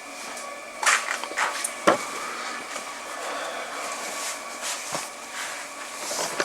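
Large plastic Model S dashboard trim pieces being handled and set in place: several sharp plastic clacks and knocks about a second to two seconds in and another around five seconds, with light rubbing between them. Under it runs a steady faint hum.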